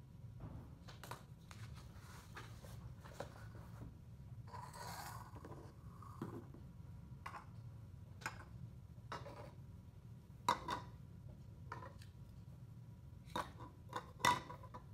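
Pen scratching on a paper record form, a rustle about five seconds in, then small hard plastic toy ducks being set down on a table with several light knocks, the loudest near the end.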